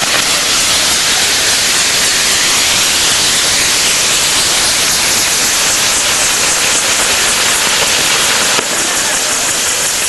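Fireworks mounted on a castillo (a tall pyrotechnic tower) burning, giving a steady, loud hiss with a fine crackle of showering sparks.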